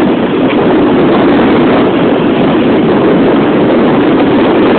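Rough sea churning and breaking against rocks, a loud steady rush of water.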